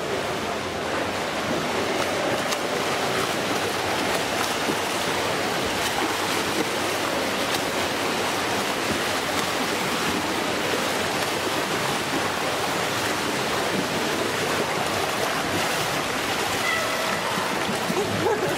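Swimmers splashing hard through pool water: a steady, dense churn of splashing.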